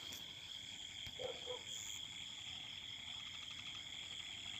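Faint, steady high-pitched trilling chorus in the background, with a brief soft sound about a second and a quarter in.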